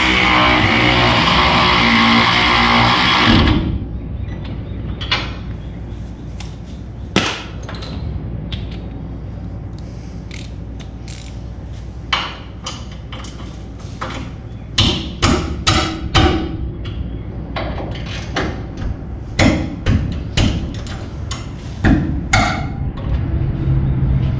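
A power tool runs loudly for about three and a half seconds, then stops. After that come scattered metallic clicks and knocks from a ratchet and hand tools, bunched in the second half, as brake caliper bolts are run in and tightened.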